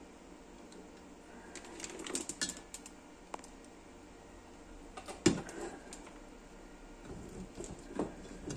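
Handling clatter as a benchtop multimeter and its test leads are moved and set down: a cluster of light clicks about two seconds in, one sharp knock a little past the middle, and a few more knocks near the end.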